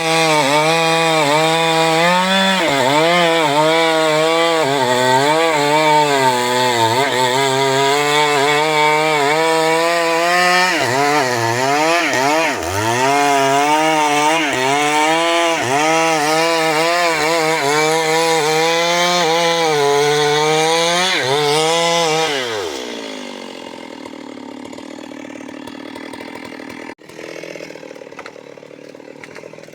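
Chainsaw running at high revs while cutting wood, its engine pitch repeatedly dipping and recovering as the chain bites. About 22 seconds in, the engine winds down and the sound drops to a quieter steady noise, with a sharp click near the end.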